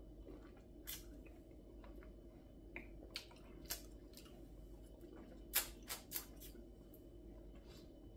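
Faint, scattered wet clicks and lip smacks from a man's mouth as he tastes hot sauce, about half a dozen over several seconds, with a small cluster a little past the middle. A low steady hum runs underneath.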